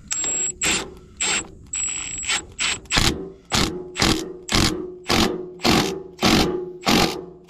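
Bolt on a mini excavator's hydraulic fitting being run back in with a Torx-bit tool: a train of short ratcheting bursts, irregular at first, then settling to about two a second from about three seconds in.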